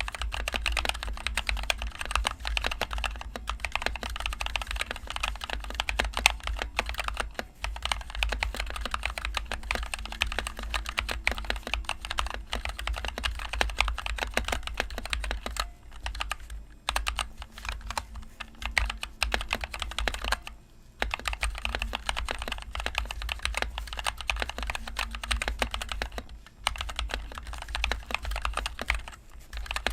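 Fast, continuous typing on a NovelKeys NK65 Entry Edition mechanical keyboard fitted with NovelKeys Cream linear switches and HyperX Pudding keycaps. The keystrokes come as a dense stream of clicks, broken by brief pauses a little past halfway, around two-thirds of the way in and a few seconds after that.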